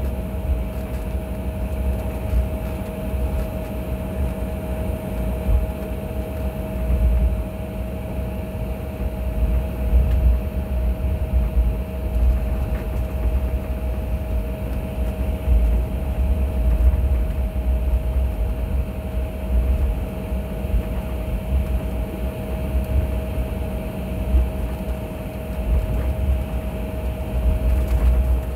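Jet airliner taxiing after landing, heard from inside the cabin: a steady low rumble with a constant mid-pitched whine over it.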